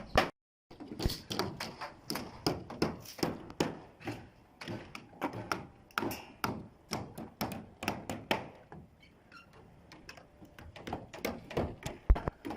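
Construction work: a run of irregular knocks and taps, several a second, thinning out for a couple of seconds after the middle and picking up again near the end.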